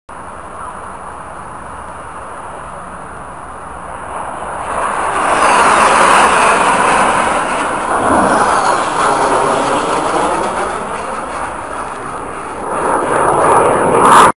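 Military jet flying past overhead. The engine noise builds from about four seconds in and is loudest around six seconds, drops in pitch as the jet passes, then swells again near the end.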